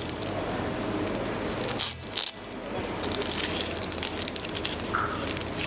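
Small plastic tackle packet crinkling and clicking as a fishing swivel is taken out of it, over a steady low hum.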